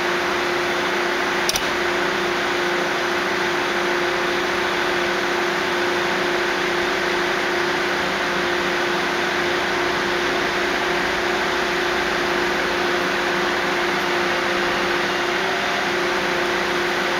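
Syntus DM90 'Buffel' diesel multiple unit idling at the platform: a steady diesel drone with one constant hum tone. A single short click about a second and a half in, and the hum edges up slightly in pitch near the end.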